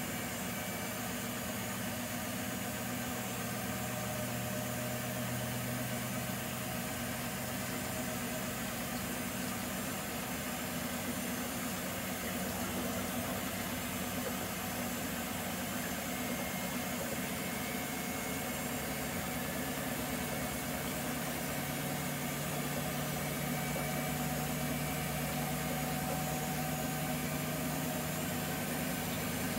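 Nortec Primus P6 commercial washing machine running through a wash, a steady motor hum over a hiss, with the hum stepping up in pitch about two-thirds of the way through.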